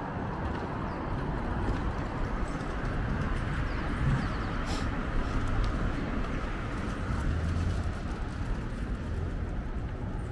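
City street traffic, a steady rumble of passing vehicles, with a brief high hiss about five seconds in.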